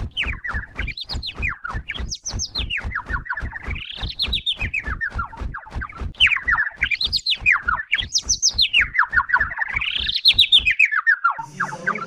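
Intro sound effect of rapid bird-like chirping, about seven chirps a second, over an even beat, its pitch swooping up and down every second or two. It stops about a second before the end.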